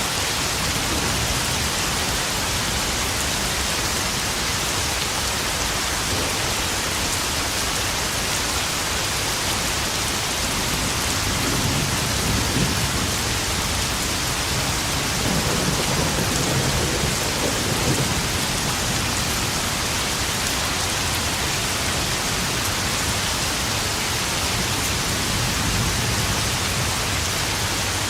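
Steady heavy rain pattering into puddles. About eleven seconds in, a low roll of thunder swells and rumbles for several seconds before fading back under the rain.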